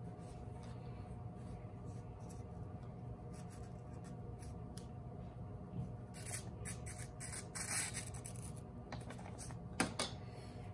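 Paper envelope being slit open with a small blade and torn, with rustling and scratching about six to eight seconds in. There is a single sharp tap near the end, over a faint steady room hum.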